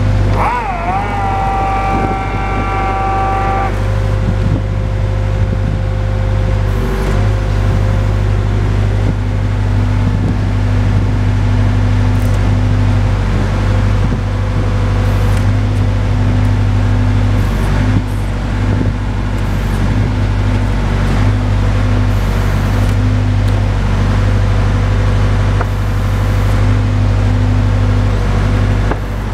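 Boart Longyear DB520 drill rig running steadily with a deep engine drone. A high whine sits over it for the first few seconds, wavering in pitch about a second in and stopping after about four seconds.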